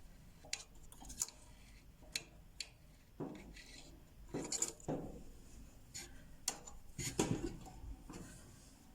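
Scattered light clicks, taps and brief rustles of hands handling small parts and tools while working on a clothes-dryer motor, irregular and a few each second, with the loudest handful near the middle and about three quarters of the way through.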